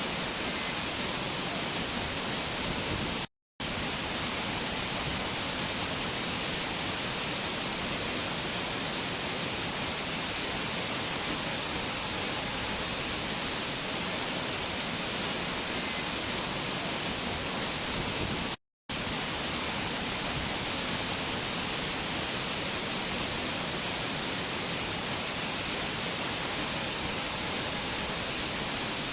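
Waterfall rushing in a steady hiss, strongest in the high range. It cuts to dead silence twice for a split second, about three seconds in and again about eighteen seconds in.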